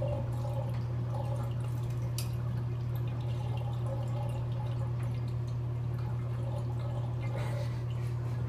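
Steady low hum with faint water dripping into a filled bathtub, and a few light ticks.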